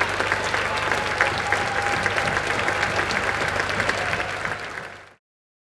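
A large audience applauding, a dense, steady clatter of many hands clapping that fades out about five seconds in.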